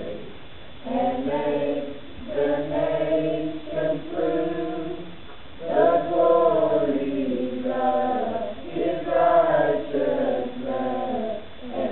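Youth choir of mixed teenage voices singing together, in sung phrases with short breath pauses between them.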